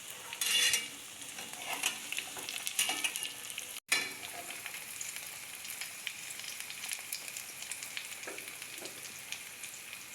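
Bread coated with egg, tomato and onion frying in oil in a pan on low heat: a steady sizzle with crackles. There is a brief louder burst about half a second in, and the sound drops out for an instant near four seconds in.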